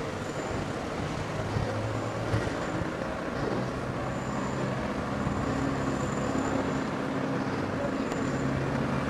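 Camper van's engine running at low speed with road noise, heard from inside the cab: a steady low hum.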